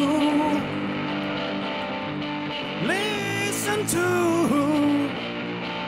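A man singing a gospel song over a steady keyboard accompaniment. A held note ends about half a second in, and a second phrase with sliding pitch comes about three seconds in.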